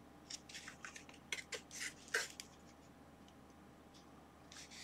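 Clear plastic clamshell packaging handled in the hands: a quick run of faint crackles and taps in the first couple of seconds, the loudest about two seconds in, then quiet room noise.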